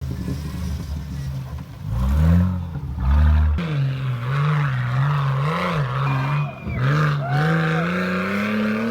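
Nissan Patrol Y61's TB42 4.2-litre straight-six petrol engine working under load off-road, its revs rising and falling repeatedly, then climbing steadily near the end.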